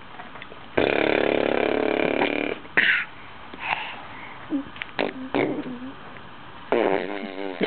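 A raspberry blown with the lips: a loud buzzing sputter lasting nearly two seconds, then a few short sharp sounds and a brief wavering vocal sound near the end.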